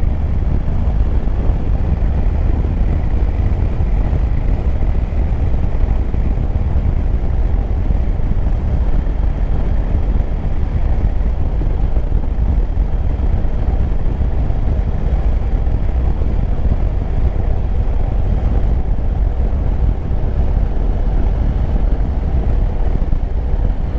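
Yamaha Tracer 9 GT's three-cylinder engine running steadily at a constant road speed, mixed with wind noise on the microphone.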